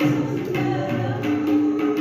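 A Hindi song: a singing voice over a steady held note and a percussion beat.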